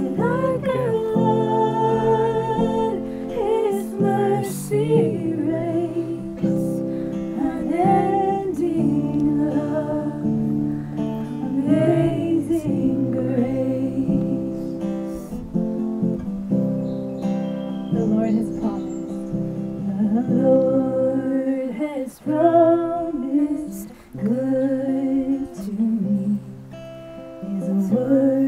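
Music: a slow song, a singing voice over strummed and plucked acoustic guitar.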